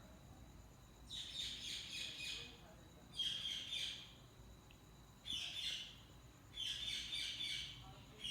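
Budgerigars chirping in four short bouts of quick, high, downward-sliding notes, the first about a second in.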